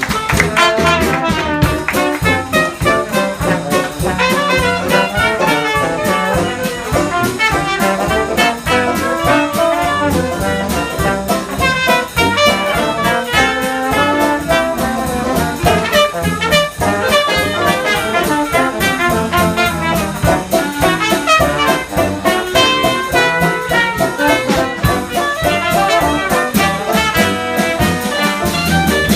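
Live band playing jazz-style music led by brass horns, over a steady beat.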